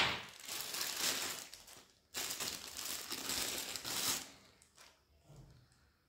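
Plastic bag crinkling as a cable is pulled out of it and handled, in two stretches of about two seconds each with a brief break about two seconds in, then dying down to faint rustles.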